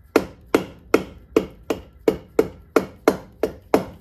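Soft-faced hammer tapping steadily on the aluminium crankcase of a KTM 450 EXC engine, about three blows a second, to ease the case halves apart off the crankshaft.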